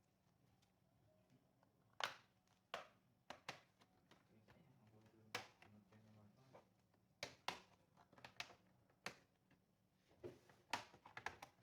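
Scattered sharp clicks and taps at irregular intervals, about a dozen, the loudest about two seconds in and a quick cluster near the end: hands and small tools working on a laptop's case and parts while it is opened to add RAM.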